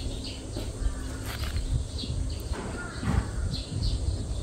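Sparrows chirping in short, scattered calls over a low rumble and a faint steady hum.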